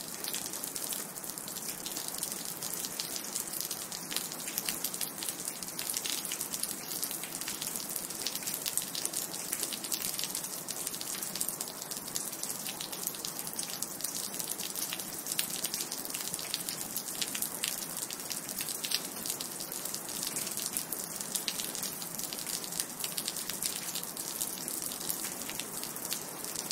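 Steady rain falling, with a dense patter of single drops dripping over an even hiss.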